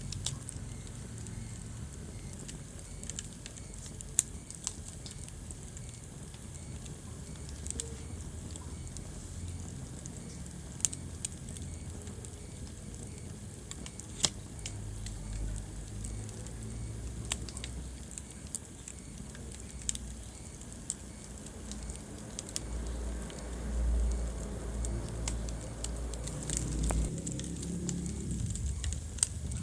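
Wood fire burning in a fireplace, crackling steadily with occasional sharp pops, over a low rumble of the flames that swells for a few seconds near the end.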